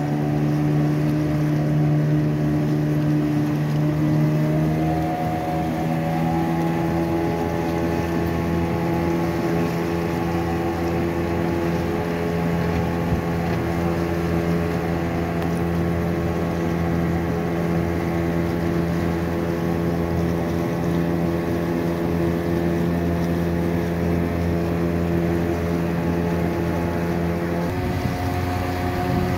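The motor of a pontoon river raft running steadily under way, with the rush of its wake. Its pitch steps up about five seconds in and shifts again near the end.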